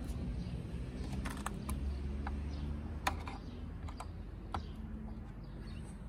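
A few light, scattered clicks and taps of hands handling the plastic parts of a car's side-mirror housing.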